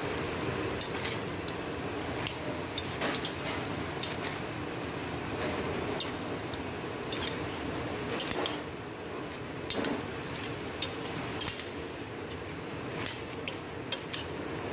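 Metal ladle stirring crayfish in a steaming stainless steel pot: irregular clinks and clicks of the ladle and shells against the pot over a steady hiss of the cooking.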